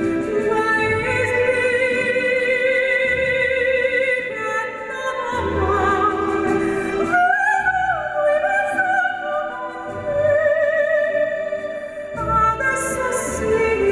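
A female singer singing an operatic melody into a microphone, holding long notes with vibrato, over instrumental accompaniment with a low bass.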